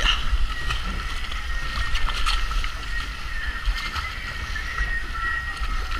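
Spinning reel's drag giving a thin, steady high whine that wavers a little in pitch as a hooked yellowtail kingfish pulls line, over a constant low rumble of wind and water around the boat.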